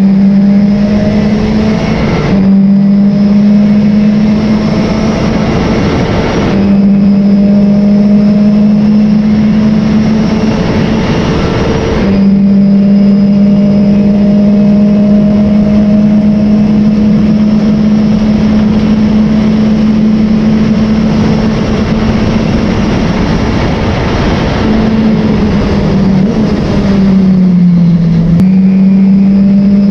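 Race car engine running hard at high, fairly steady revs. It breaks briefly a few times, about two, six and twelve seconds in, and dips in pitch near the end before picking up again, as with gear changes or lifting for corners.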